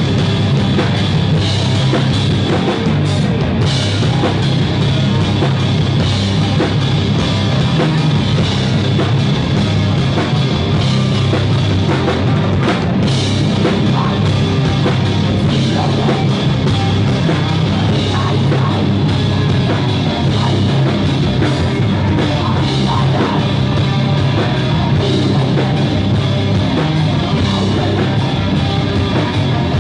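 Live death-doom metal band playing loud and without a break: distorted electric guitar from a Gibson Firebird through a Marshall JCM800 amplifier, with bass and drum kit, the low end heaviest.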